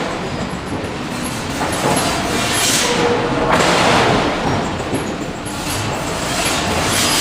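Forge shop machinery around a hydraulic forging hammer: a steady loud industrial din with several short hissing bursts at irregular intervals.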